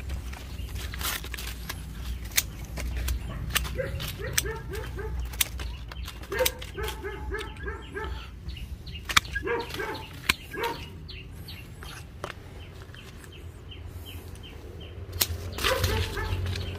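Pruning shears snipping through custard apple branches again and again, with sharp clicks of the blades and the rustle of twigs and leaves. Behind it an animal calls a few times in quick runs of short notes.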